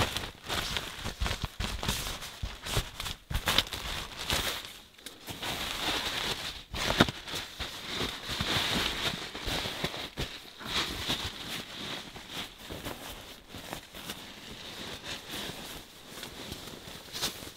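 Sleeping bag, quilt and inflatable sleeping pad rustling and crinkling as they are handled and spread out, with irregular sharp crinkles throughout.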